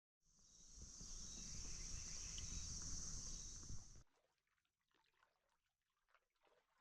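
Steady high-pitched insect buzzing, like a cricket or cicada chorus, over a low rumble. It fades in and then cuts off abruptly about four seconds in, leaving only faint scattered ticks.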